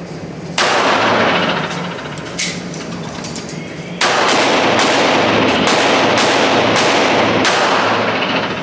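A string of gunshots echoing in an indoor shooting range. Sharp reports come about half a second in, near 2.5 s, and again from 4 s on, then several more roughly every 0.7 s, each trailing a long echo. A steady low hum runs underneath.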